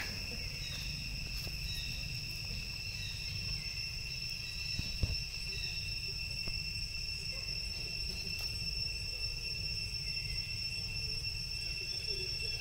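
Insects keeping up a steady, unbroken high-pitched drone, over a low rumble, with one short knock about five seconds in.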